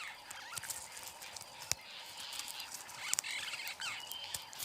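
Faint natural ambience with scattered small animal chirps and ticks, a sharp click about two seconds in, and a short flurry of chirps a little after the middle.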